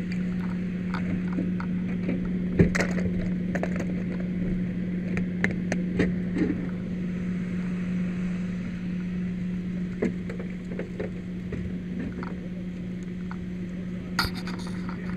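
Steady drone of a running engine, with scattered knocks and clanks from work at the wrecked car; the sharpest knock comes about two and a half seconds in, and another cluster comes near the end.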